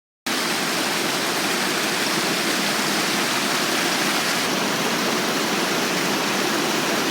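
River rapids rushing steadily, a dense, even wash of water noise that cuts in suddenly just after the start.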